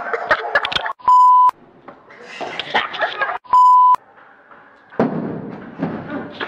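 Two loud, steady bleep tones of the kind edited in to cover swearing, each about half a second long, about two and a half seconds apart, with voices between them.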